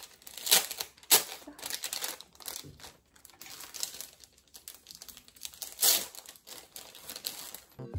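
Clothing and a fabric baby carrier rustling and rubbing in short, uneven crackles as a baby is bounced and walked about in it.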